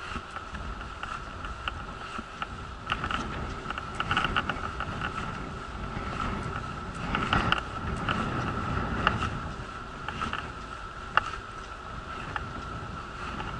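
A moving wheelchair, heard from a camera mounted on it: a steady high whine runs throughout over a low rumble, with scattered rattles and knocks from bumps in the pavement.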